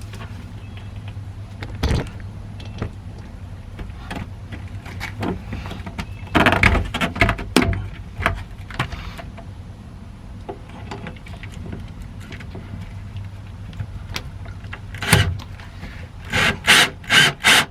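Knocking and clattering of tools and metal parts being handled while fitting a piece of angle aluminum, over a steady low hum. A cluster of clatter comes about six seconds in, and a quick run of loud knocks comes near the end.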